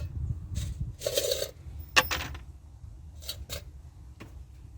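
Handling noises of tools and small parts being moved about: a few short scrapes and rustles, with one sharp click about two seconds in as the loudest sound, over a low steady background rumble.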